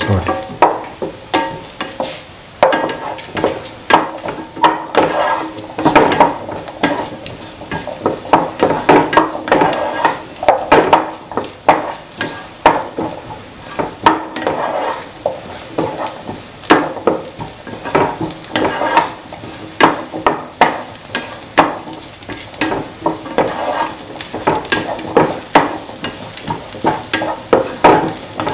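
Sliced onions and shallots sautéing in oil in a pan, sizzling. A spatula scrapes and knocks against the pan again and again as they are stirred.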